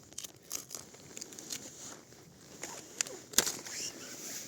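Birch bark being cut and peeled off a fallen birch with a knife: irregular crackling and tearing with scattered small snaps, the sharpest snap about three and a half seconds in.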